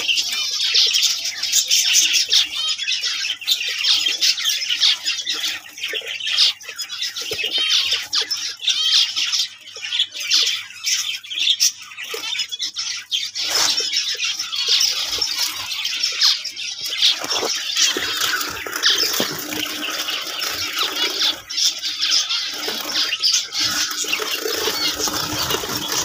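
Many small finches chirping and calling together, a dense, continuous high-pitched chatter.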